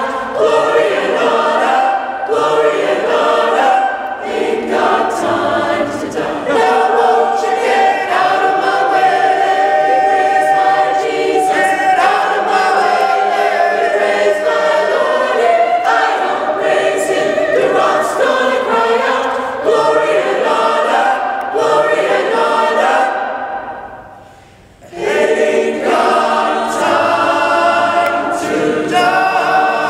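Mixed choir of men's and women's voices singing a spiritual in sustained full chords. About 23 seconds in the sound fades away to a short pause, then the choir comes back in at full voice.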